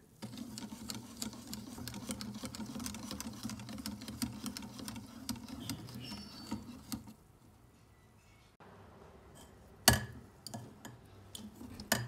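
Wire whisk beating pancake batter in a ceramic bowl: fast, uneven clicking and scraping of the wires against the bowl for about seven seconds, then it stops. Two sharp knocks follow, one about ten seconds in (the loudest sound) and one at the very end.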